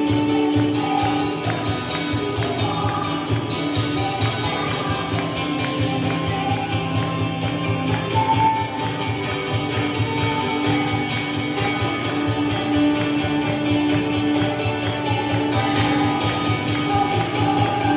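Worship music with a steady beat and guitar.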